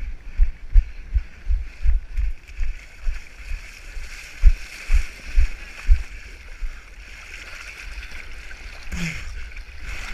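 Water splashing and sloshing right at the camera as a swimmer wades in and swims: irregular dull knocks in the first six seconds or so, then a steadier rushing wash of water.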